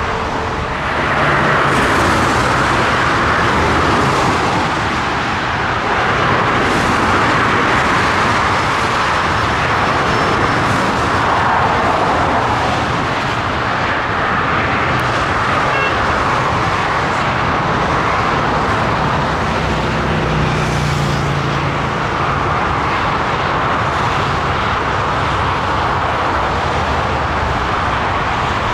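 Jet airliner engines making a steady, loud rushing noise that swells and eases slowly several times.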